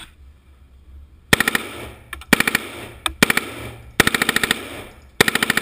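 Heckler & Koch MP5 submachine gun firing five short bursts of full-auto fire, roughly a second apart, starting about a second in.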